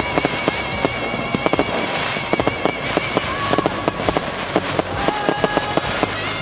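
Fireworks going off in quick succession: a dense, continuous run of sharp bangs and crackles, several a second.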